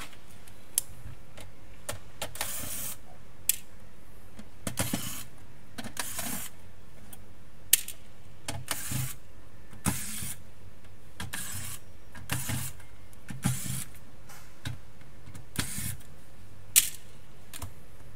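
Irregular clicks, clinks and short scrapes of plastic and metal parts as a PlayStation 4 Slim console is taken apart by hand. The sharpest click comes near the end.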